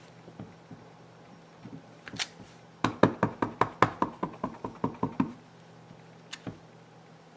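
Acrylic stamp block tapped rapidly on an ink pad to ink the stamp: a run of about fifteen sharp taps, roughly six a second, lasting about two and a half seconds. A few single knocks come just before and after it as the block is picked up and set down.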